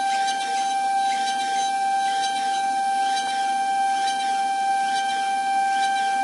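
A 5-axis CNC router's spindle whining at one steady high pitch as its fine carving bit mills a wooden cabriole leg, over a light hiss of cutting.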